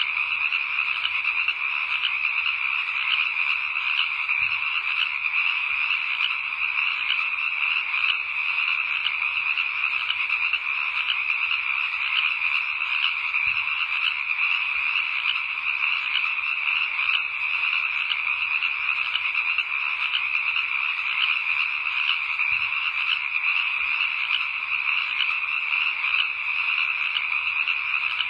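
Dense, steady chorus of many frogs calling, an unbroken mass of fast overlapping calls.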